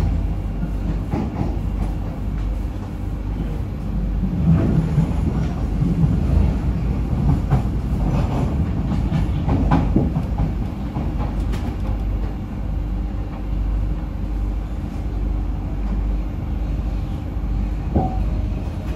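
SMRT C151B metro train running on the track, heard from inside the car: a steady low rumble with irregular clicks from the wheels over the rails.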